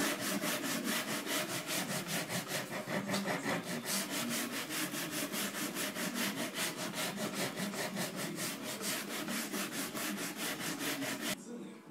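Sandpaper on a hand sanding block rubbed back and forth over an end grain wooden cutting board, in quick even strokes about five a second, stopping abruptly near the end.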